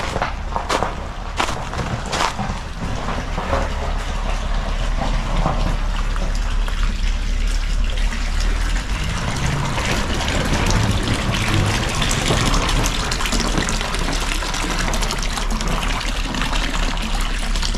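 Footsteps crunching on packed snow for the first two or three seconds, then the steady rush of hot-spring water running into an outdoor foot bath.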